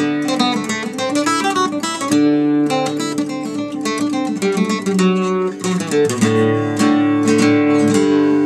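A five-course steel-string instrument converted from an old Yamaha guitar, played with picked notes and strummed chords that ring on. Fuller chords come in from about six seconds in.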